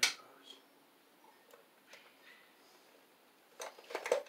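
Sharp clicks and small ticks of hand tools and electrical wire being handled at a breaker panel: one sharp click at the start, a few faint ticks, then a quick cluster of clicks near the end.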